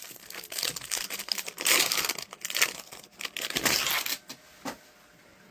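Foil wrapper of a hockey card pack being torn open and crinkled: a run of crackling and rustling that stops about a second before the end.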